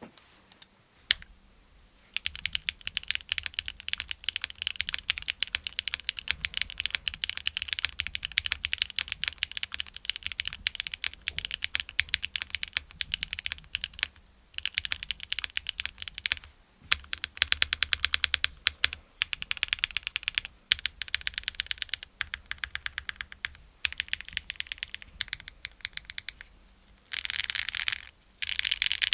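Mechanical keyboard typing: Gateron Raw switches in a Cub65 board without PE foam, springs bag-lubed against stock spring ping and slider rails lubed with Tribosys 3204. A single keystroke about a second in, then fast typing in runs with short pauses, and a dense flurry of keystrokes near the end.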